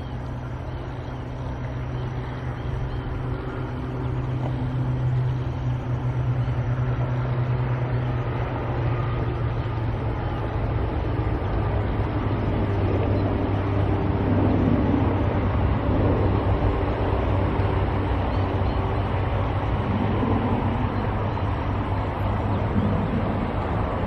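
Road traffic noise: steady engine hum and tyre noise from passing vehicles, growing louder about four seconds in.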